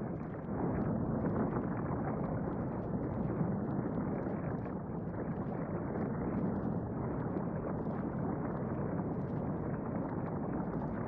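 Steady low rumbling of a volcano sound effect, with faint crackles over it, ahead of an eruption.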